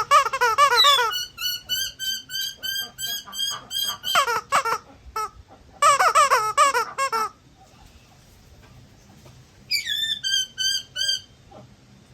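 A squeaky toy squeaked over and over by an eclectus parrot, in several bursts of high squeaks about four a second, some held on one pitch and some wavering up and down.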